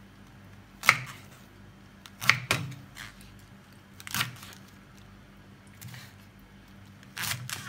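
Kitchen knife cutting through cabbage leaves onto a plastic cutting board: about five separate crisp cuts with pauses between them, the first about a second in and two close together near the end.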